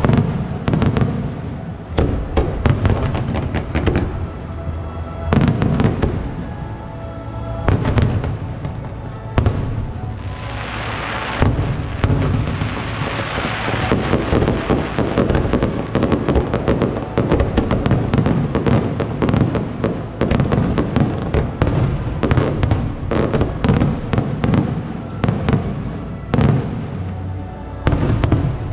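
Aerial fireworks display: a rapid, continuous series of shell bursts and sharp cracks, with a denser hissing crackle about ten seconds in, and music playing underneath.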